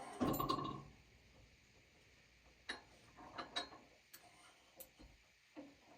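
A short clatter, then scattered light clicks and knocks at irregular intervals, with no engine or saw running.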